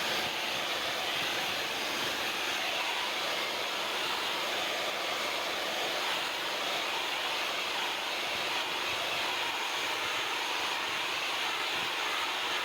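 Steady hiss of a water jet flushing a dirty air-conditioner evaporator coil, running evenly without a break.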